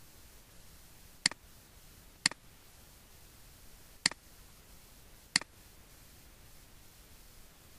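Four single computer mouse clicks, spaced unevenly about one to two seconds apart, over a faint steady hiss.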